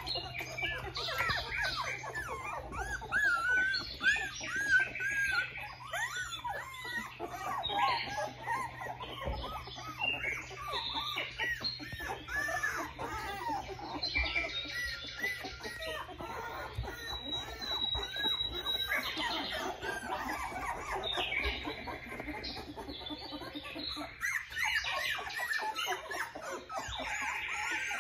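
Australian Shepherd puppies whining and squealing: many short, high-pitched cries that rise and fall, often overlapping.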